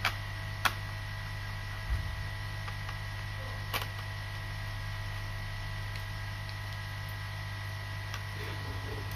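Steady electrical hum with a faint high-pitched tone, broken by a few sharp clicks and one soft knock from laptop parts being handled on a repair bench.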